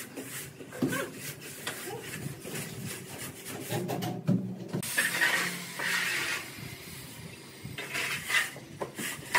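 Gritty scraping and rubbing of semi-dry cement-sand mortar being spread and levelled with a metal straightedge and gloved hands, the bedding layer for floor tiles. Irregular short scrapes, with a longer hissing scrape about five seconds in and a sharp knock near the end.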